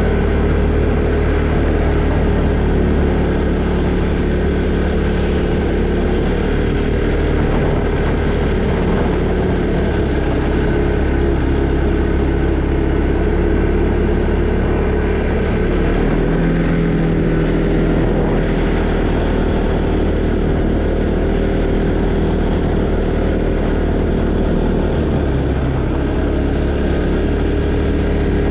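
A 2020 Arctic Cat Alterra 700 ATV's single-cylinder engine running steadily while riding, its note changing about halfway through.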